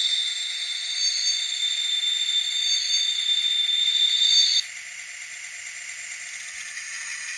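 Sound-decoder diesel air horn of an N scale F3A sounding one long blast through a tiny speaker, a thin high chord that cuts off abruptly about four and a half seconds in. After it the decoder's running sound carries on more quietly.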